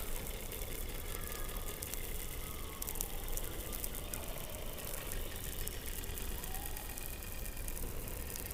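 Underwater sound recorded by a hydrophone beneath Antarctic ice: a steady noise bed with many faint crackling clicks and a few faint short chirping sweeps in pitch.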